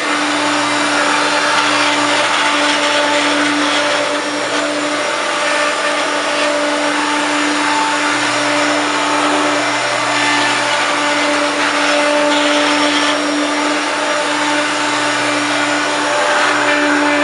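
Hoover Turbopower 1 U2798 vacuum cleaner running steadily at full power: a constant motor whine over the rush of air.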